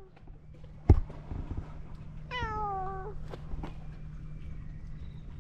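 A cat meows once, about two and a half seconds in: one call a little under a second long, sliding slightly down in pitch. A sharp knock, the loudest sound, comes about a second in.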